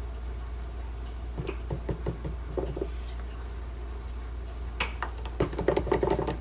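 A spoon scraping and tapping against a container as sour cream is scooped out, with scattered small knocks and a sharper click about five seconds in. A steady low hum lies underneath.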